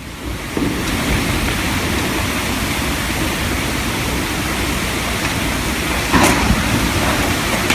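A steady rushing noise, like heavy rain or rushing water, with a brief louder burst about six seconds in.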